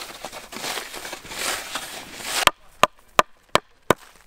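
Hatchet chopping into a log: sharp, evenly spaced blows, about three a second, beginning about halfway through. Before them comes a rushing noise that cuts off abruptly.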